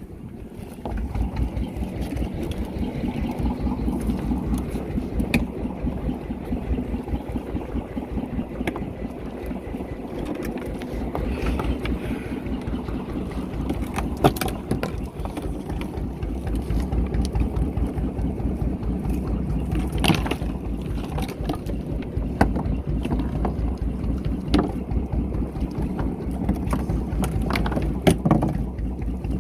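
Fishing boat's engine starting up about a second in, then running steadily with an even low pulse, with a few sharp knocks on the boat.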